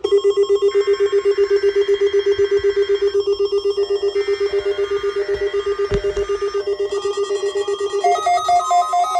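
Electronic alarm tone beeping rapidly, about nine pulses a second at one steady low pitch. Near the end it switches to a higher, alternating two-note pattern.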